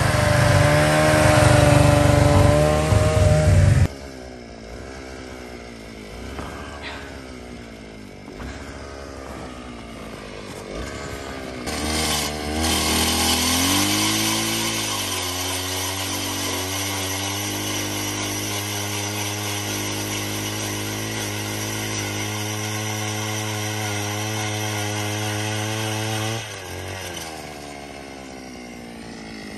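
A snowmobile engine runs close up and cuts off suddenly about four seconds in. Then a gas-powered ice auger's small engine runs at low, wavering revs, speeds up about twelve seconds in and holds a steady high pitch under load as it bores through lake ice, easing off near the end.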